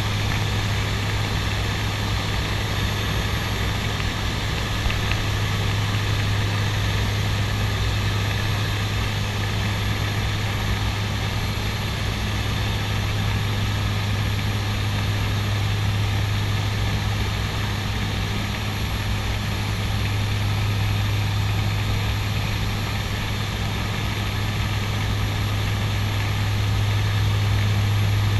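Cockpit drone of a CASA NC-212-200 Aviocar's twin Garrett TPE331 turboprop engines and propellers in steady low-level cruise: a strong, steady low hum from the propellers under a dense, even rush of engine and airflow noise.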